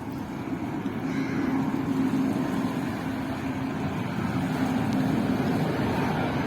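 Steady engine rumble with a low hum, growing a little louder about a second in and then holding.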